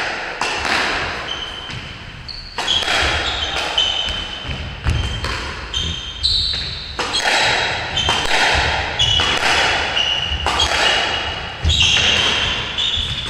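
Squash rally: a quick series of sharp hits as rackets strike the ball and it smacks off the court walls, each hit echoing in the court. Short high squeaks of sneakers on the wooden floor come between the hits.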